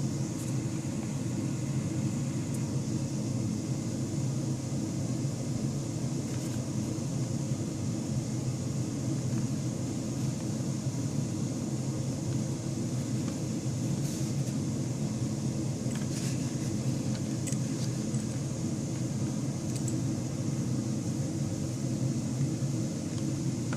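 Steady low mechanical hum of room background noise, with a few faint handling clicks.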